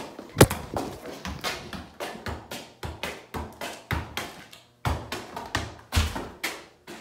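A small ball being kicked and juggled, a quick run of taps and thumps off feet and a concrete floor, with shoe scuffs. A loud knock about half a second in is the filming phone being caught and handled.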